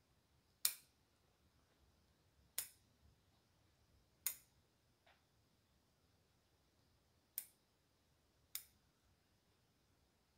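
Bonsai shears snipping bald cypress shoots: five sharp snips spaced a second or two apart.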